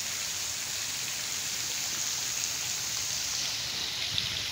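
Steady hiss of splashing water.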